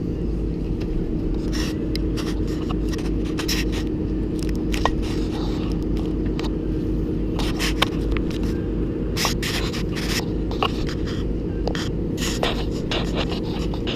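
A Komatsu PC290-10 excavator's diesel engine runs steadily with a constant hum, while many irregular scrapes and clicks sound over it throughout.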